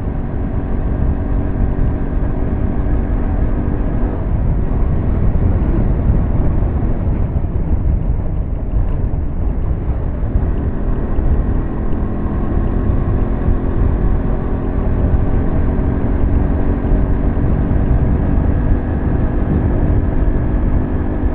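KTM motorcycle engine running at a steady note while riding, under heavy wind rush on the microphone; the engine note fades out about 4 seconds in and comes back about 10 seconds in. The rider takes the bike's failure to pick up speed for a burnt clutch plate.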